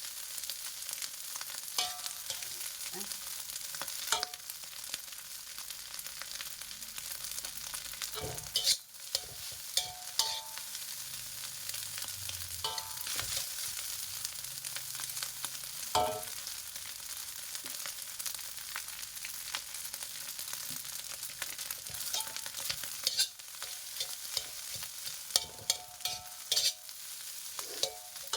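Nasi goreng (fried rice) sizzling in a hot pan as it is stirred, a steady hiss broken by a spatula scraping and clinking against the pan every few seconds with short metallic rings.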